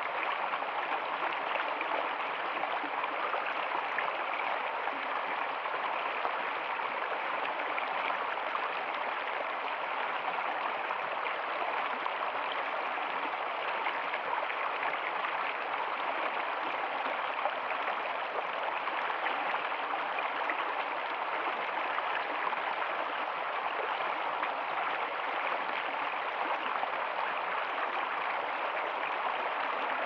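Shallow mountain stream rushing over rocks in a steady, even rush of water.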